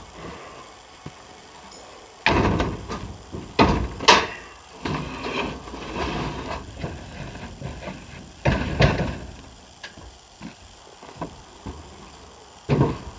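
Empty IBC tote's steel cage and plastic tank knocking and scraping against a pickup truck's tailgate and bed as it is tipped up and pushed in, with several loud knocks, the biggest about two seconds in, around four seconds, past eight seconds and near the end.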